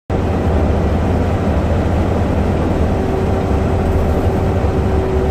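Steady low rumble of a heavy truck's diesel engine running, with a constant hum above it.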